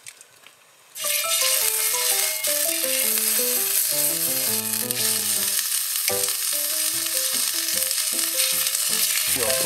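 Slices of raw beef sizzling loudly on a hot storm cooker frying pan, starting suddenly about a second in as the meat goes down. A melody of background music plays over the frying.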